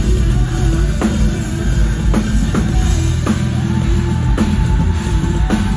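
Live rock band playing loud, with a drum kit and electric guitars. Heavy drum hits land about once a second over held guitar notes.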